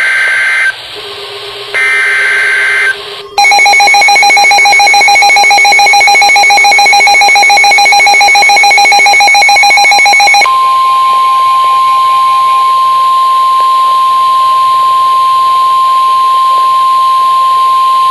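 Emergency Alert System tones: two short screeching bursts of the SAME digital header near the start, then a loud harsh buzzing attention tone for about seven seconds, then a steady single pure tone, the NOAA Weather Radio warning alarm tone, for the rest.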